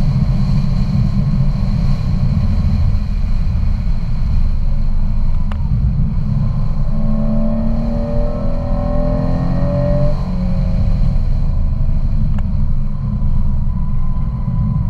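Car engine and road noise heard from inside the cabin at speed: a dense low rumble. The engine note climbs in pitch about seven seconds in, then drops back around ten seconds.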